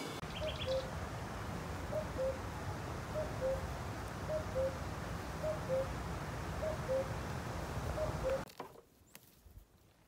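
A bird repeating a two-note call, a higher note dropping to a lower one, seven times at about one call a second over a steady low rumble; both stop abruptly about eight and a half seconds in.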